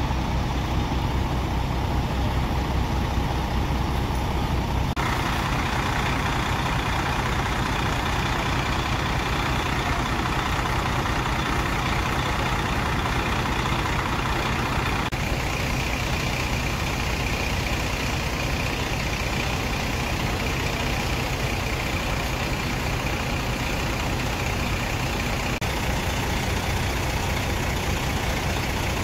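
Fire engines' diesel engines running steadily at the fire scene, a continuous heavy engine drone with a few abrupt shifts in tone.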